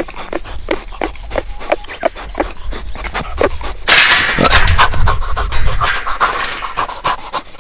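Wild boar trapped in a steel-mesh cage trap, huffing in quick short breaths several times a second. About four seconds in, a louder harsh scuffling noise lasts about two seconds as the boar rears up against the wire bars.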